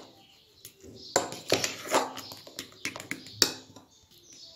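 A metal fork stirring thick garlic sauce in a bowl, with irregular sharp clicks and taps of the fork against the bowl.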